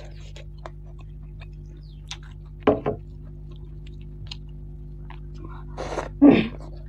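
Close-miked eating sounds: chewing with small wet mouth clicks, a pair of louder smacks about two and a half seconds in, and the loudest burst near the end as a handful of curry-mixed rice goes into the mouth by hand. A steady low hum runs underneath.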